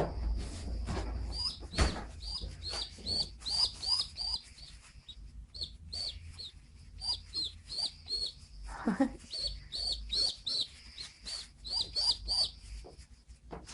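Young pigeon squab peeping: a long series of short, high squeaks, about two or three a second, with a couple of brief pauses. A soft knock about two seconds in.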